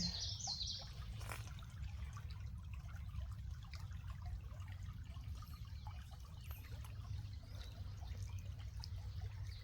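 Spring water trickling steadily, with small irregular drips and splashes over a low steady rumble.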